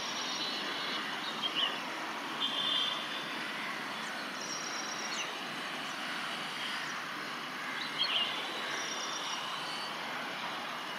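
Steady rushing noise of a train running by, with several brief high chirps over it.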